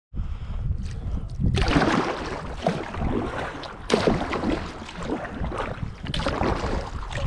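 Paddle strokes dipping and splashing in the water, a fresh stroke every couple of seconds, with wind rumbling on the microphone.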